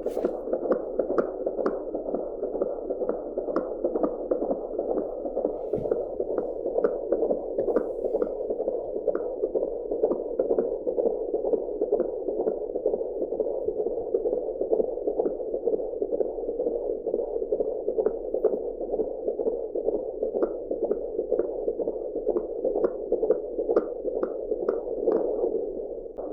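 Fetal heartbeat picked up by an Angel Sounds handheld fetal Doppler: a fast, even run of whooshing pulses over a steady hiss.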